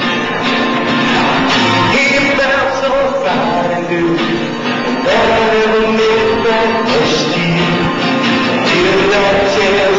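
A song with singing over guitar accompaniment, played loud and without a break.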